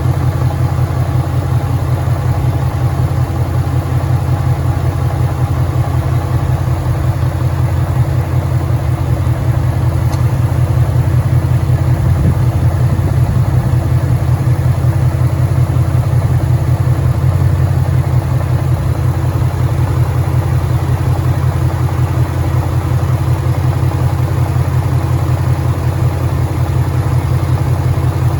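2013 Ford Mustang GT's 5.0 L Coyote V8 idling steadily with a fast, even pulsing, a knocking noise that the owner takes for rod knock.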